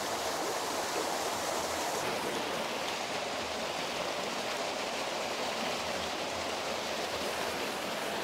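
Small waterfall falling over rocks into a pool, a steady, even rush of water.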